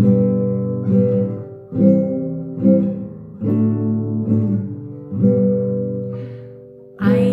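Acoustic guitar strummed slowly, about one chord a second, each chord ringing and fading before the next: the opening of a simple children's song.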